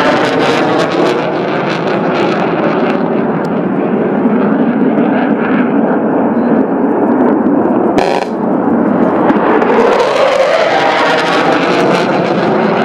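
Military jet fighter flying low past, its engine noise loud and continuous, with the sweeping whoosh of a pass near the start and again after about ten seconds. A single sharp crack sounds about eight seconds in.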